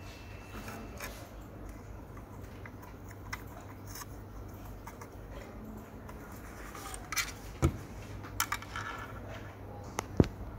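Handling noise of a plastic waist fan and a lanyard cord being attached: light scattered clicks and taps, with a few sharper plastic knocks in the second half, the loudest about ten seconds in.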